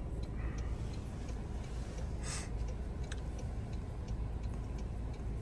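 Car's turn-signal indicator ticking evenly, about three clicks a second, over the low rumble of the car cabin, with a brief rustle a little over two seconds in.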